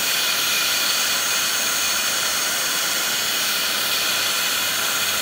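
Heat gun blowing a steady rush of hot air onto clear soda-bottle plastic wrapped around a pipe, heating the plastic so it frosts white like ice.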